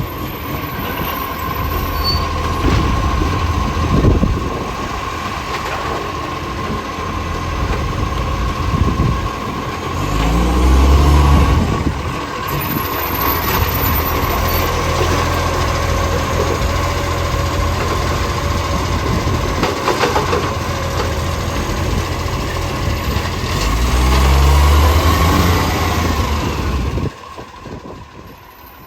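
Garbage truck's diesel engine running with a steady high whine, revving up twice: briefly about ten seconds in, and again for a few seconds near the end, before the sound drops away sharply. The truck has an exhaust leak.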